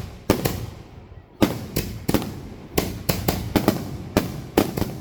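Fireworks going off in quick succession: about a dozen sharp bangs at uneven intervals, several coming close together, each trailing off in a short echo.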